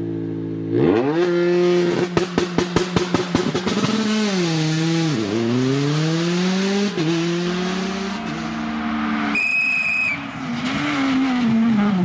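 Rally car engine revving hard, with a rapid run of sharp pops and bangs near the start. The engine pitch then drops and climbs again several times through gear changes. A short tyre squeal comes a little before the end.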